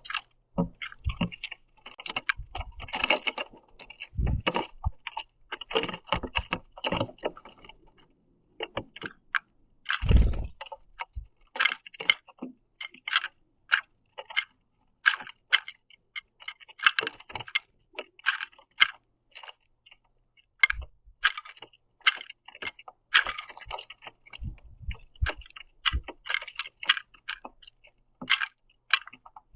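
Birds pecking and cracking sunflower seeds on a wooden platform feeder: many quick, irregular taps and crunches, with a louder thump about ten seconds in.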